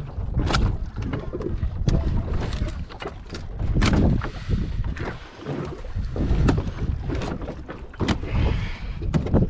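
Wind rumbling on the microphone aboard a small open boat at sea, with many short knocks and bits of clatter.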